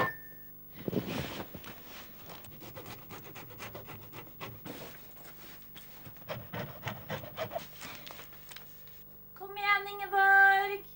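Cloth rustling and rubbing in soft, irregular scrapes as loose trousers are pulled up and handled. Near the end a woman calls out loudly in a long, drawn-out voice.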